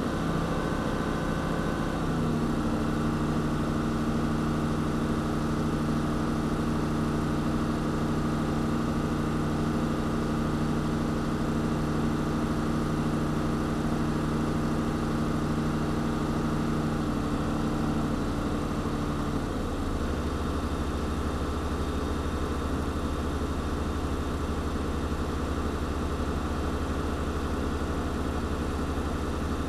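Fire engine's engine running steadily, heard from inside the cab. A held hum sits over it and gives way to a lower, deeper drone about two-thirds of the way through.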